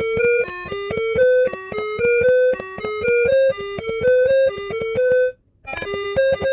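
Background music: a quick melody of short, bright notes at about four a second, breaking off briefly near the end before starting again.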